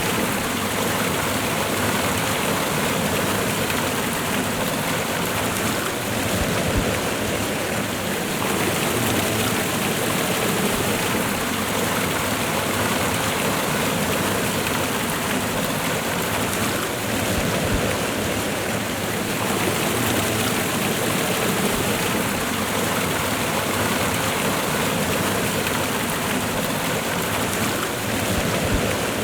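Steady rush of a waterfall and river current, water pouring and splashing continuously at an even level.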